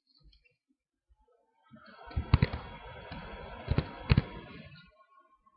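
Rustling at a computer desk lasting about three seconds, with three sharp clicks: one about two seconds in, then two close together about a second and a half later, typical of a mouse being clicked.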